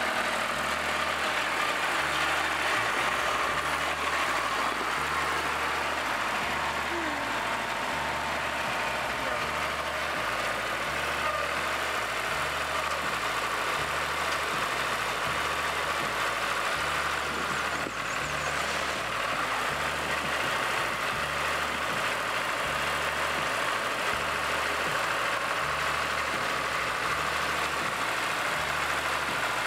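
Diesel engine of a Terraplane TD38 compact tractor running steadily while the tractor is driven and its front loader is worked at a gravel pile.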